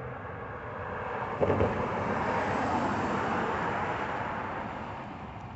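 A road vehicle driving past, its tyre and engine noise swelling to a peak and fading away, with a thump about a second and a half in.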